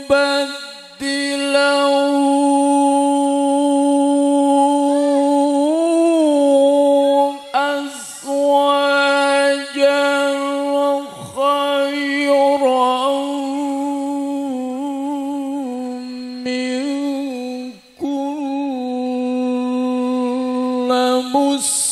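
A man reciting the Qur'an in the melodic tilawah style into a microphone: long held notes with ornamented turns, broken by a few short pauses for breath.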